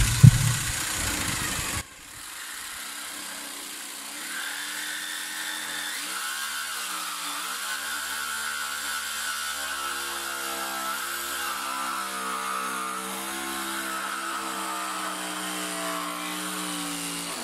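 Cordless reciprocating saw cutting the sheet steel of a car's rear wheel arch: about two seconds of harsh, loud rasping, then a steady motor whine whose pitch dips and wavers under load before it stops near the end. The blade is making little headway in the steel.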